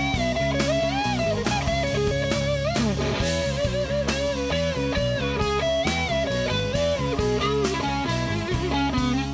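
Electric guitar through a Carvin Vintage Series all-tube amp playing a blues lead solo with string bends and slides, over a backing of drums and bass.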